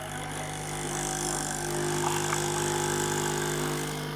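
A small motor running with a steady hum and a high hiss above it, swelling about a second in and easing off near the end; a household machine used as robot-motor foley.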